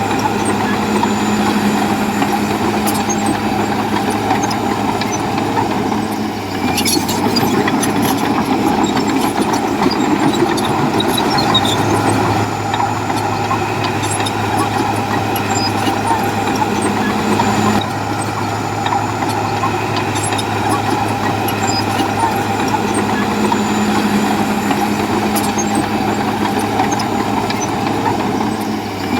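Heavy diesel engine of earthmoving machinery running steadily, with a constant low hum. The sound shifts abruptly about six seconds in and again about eighteen seconds in.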